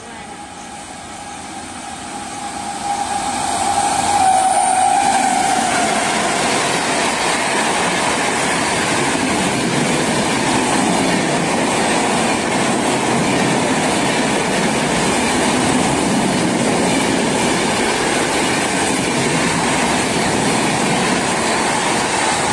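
Rajdhani Express passenger train approaching and running past at high speed. The sound swells over the first few seconds, with a steady tone that dips slightly in pitch as the front passes about four seconds in, then settles into a loud, even rush and clatter of coach wheels on the rails.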